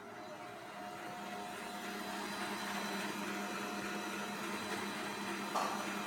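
Electric kitchen mixer motor running steadily, its hum growing louder about a second in, with one short click near the end.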